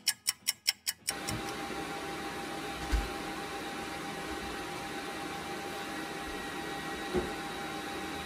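A quick run of clock-like ticks, about seven a second, for the first second, then a hooded salon hair dryer (RED 1875W bonnet dryer) switches in, its blower running with a steady hiss and a thin whine. Two soft knocks come through the dryer noise, about three seconds in and near the end.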